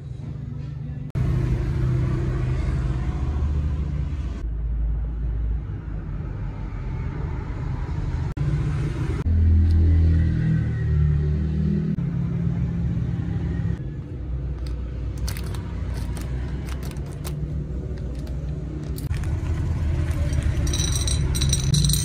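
A crinkly plastic candy wrapper is handled and opened. Near the end, candy-coated chocolate peanuts clatter out onto a ceramic plate in a quick run of bright clicks. A steady low rumble lies under it all.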